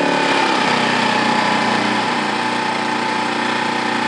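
Westinghouse iGen1200 inverter generator's small four-stroke engine running steadily just after starting, its pitch having risen and levelled off.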